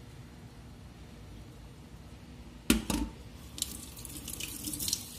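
Two sharp knocks of aluminium cookware being handled on the counter about halfway through, then a second or so of light clattering and dripping water.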